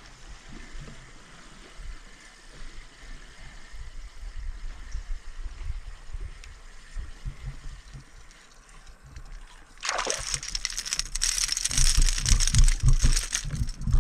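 A hooked fish splashing at the water's surface beside a kayak as it is reeled in. It breaks out suddenly and loudly about ten seconds in, after a stretch of faint water lapping.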